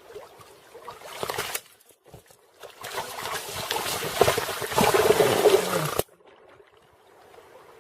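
Water splashing and sloshing in two noisy spells, a short one about a second in and a longer, louder one that swells and then cuts off abruptly.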